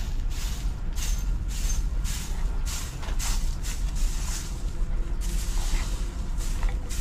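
Straw broom sweeping a dirt path scattered with dry leaves: a steady run of brisk swishing strokes, about two a second, over a steady low rumble.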